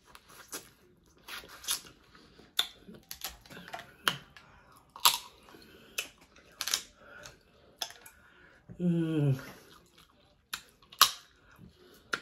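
Close-up eating of Dungeness crab: irregular sharp cracks and wet smacking as shells are broken and the meat is sucked out. About nine seconds in comes a short hum that falls in pitch.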